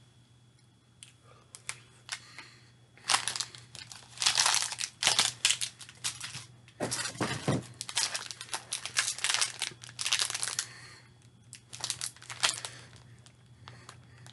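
Snack packaging being handled, crinkling and tearing open in irregular bursts, starting about three seconds in and thinning out near the end.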